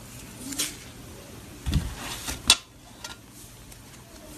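Thick fluffy slime squeezed and kneaded by hand, giving a few short squishes and sharp pops, the loudest about two and a half seconds in.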